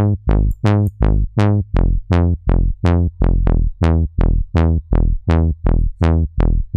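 Synth bass from Native Instruments Massive playing a repeating line of short low notes, about three a second. Each note opens bright and closes quickly as an envelope sweeps the low-pass filter down, giving a trombone-like 'elephant' bass tone.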